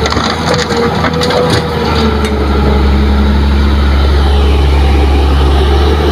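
Kobelco hydraulic excavator dumping a bucket of fill soil and rocks into a dump truck's bed, with clattering knocks over the first two seconds or so. After that the excavator's diesel engine runs steadily as the arm swings back.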